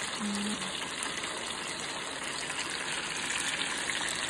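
Lumpia deep-frying in a pan of hot oil: a steady, even sizzle.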